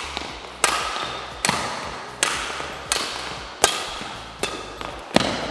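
Badminton racket striking shuttlecocks in quick net play: seven sharp cracks, about one every three-quarters of a second, each ringing out in the hall's echo.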